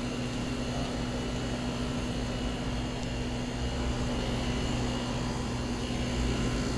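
Midea air-conditioner outdoor condensing unit running with a loud, steady hum and whine, which the owner treats as an abnormal noise.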